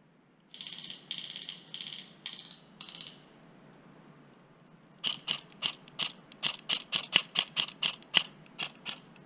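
Airsoft gun fire: five short rapid-fire bursts, each a buzzing rattle under half a second long, in the first three seconds. After a short pause come about fourteen sharp single shots at roughly three to four a second, louder than the bursts.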